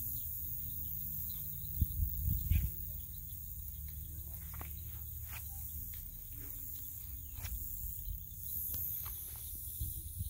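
Outdoor ambience: a high, even hiss of insects over a steady low rumble, with faint scattered ticks and a few louder thumps about two seconds in.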